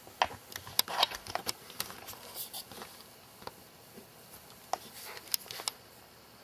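A rabbit making irregular sharp clicks and crunches, in small clusters: a quick run in the first second and a half, more around two and a half seconds, and a last cluster about five seconds in.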